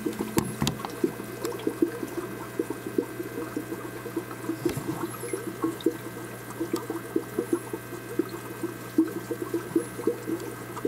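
Aquarium water trickling and bubbling in quick, irregular little splashes, over a steady low hum.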